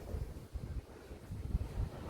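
Wind buffeting the microphone: an uneven low rumble that comes in gusts.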